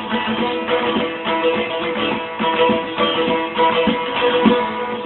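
A plucked string instrument playing a rapidly picked instrumental passage of a Turkish folk tune, with steady held tones under the melody and no singing.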